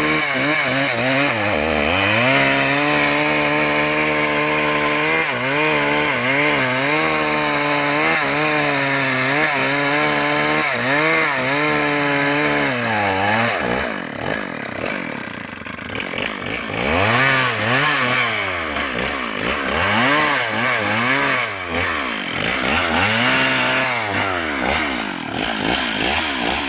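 Stihl MS 381 two-stroke chainsaw cutting into a meranti trunk at high revs. For about the first half its pitch holds fairly steady with small dips under load; after that the engine speed repeatedly drops and climbs again.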